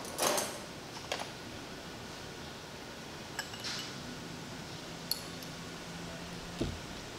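Light clinks and taps of laboratory glassware as a glass pipette and test tube are handled, a few separate small clicks with a brief rustle near the start. A faint low hum runs for a couple of seconds in the second half and stops with a soft knock.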